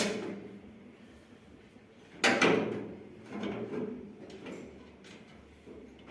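Irregular metal knocks and clanks with some scraping as combine harvester parts are handled during repair, the loudest knock a little over two seconds in.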